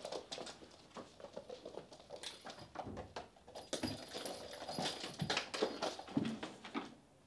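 Bengal kittens scampering and pouncing on a hard floor: a busy patter of small paws with light thumps, loudest past the middle and stopping just before the end.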